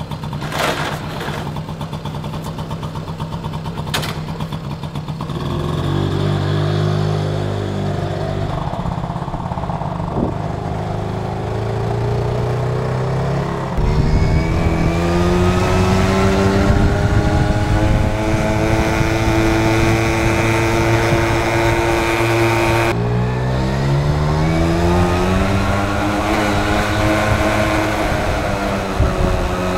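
1981 Honda Motocompo's 49 cc two-stroke single-cylinder engine, just started on choke. It idles steadily for about five seconds, then revs up and rises in pitch as the minibike is ridden off and accelerates. Its pitch drops sharply about two-thirds of the way through and climbs again.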